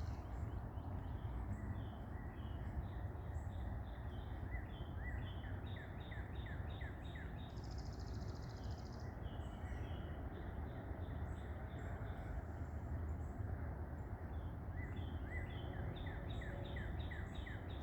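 Wild birds chirping in woodland: runs of short, quick chirps with a buzzy trill about eight seconds in, over a steady low background rumble.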